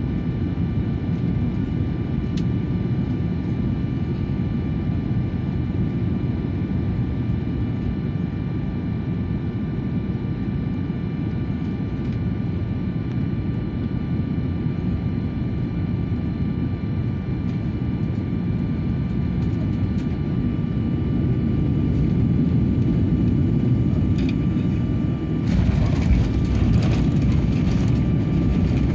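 Cabin noise of a jet airliner on final approach: a steady low rumble with a thin engine whine, growing louder in the last few seconds. About 25 seconds in the wheels touch down, and a rougher rumble and rattle of the runway roll takes over.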